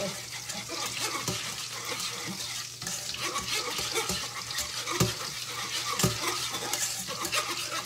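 A utensil stirring and scraping in a pan of simmering gravy, with irregular light clicks and a couple of firmer knocks against the pan, over a steady sizzle of pork steaks frying in butter in the skillet beside it.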